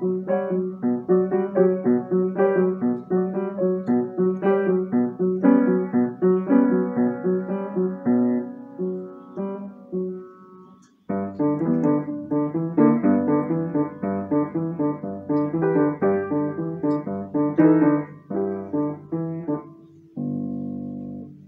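Upright piano played by a child: a quick run of short notes, a brief pause about halfway through, then more playing, ending on a held chord near the end.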